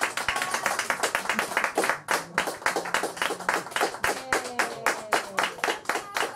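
Fast, even clapping, about five claps a second, keeping a steady rhythm, with a voice speaking quietly underneath.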